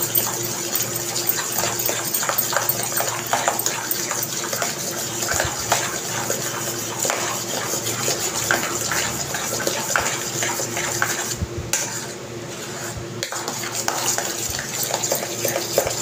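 A metal spoon beating thick strained yogurt (hung curd) in a steel bowl, a continuous run of irregular scrapes and clicks against the bowl as the curd is whipped smooth and creamy, over a steady background hum.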